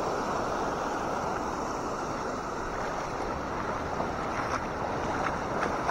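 Small waves breaking and washing up a rocky shore in a steady rush, with wind on the microphone. A few faint clicks come in the second half.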